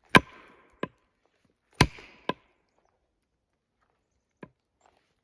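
Hammer blows on a steel felling wedge driven into the back cut of a spruce to push it against its lean: two heavy strikes, each followed by a lighter one about half a second later, with a short metallic ring, then a faint knock near the end.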